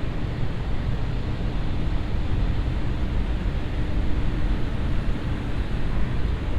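Steady city street ambience with a low rumble of passing traffic and a faint engine hum through the middle.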